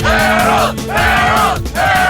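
Background electronic music: a gliding melodic lead in short phrases over a held bass note.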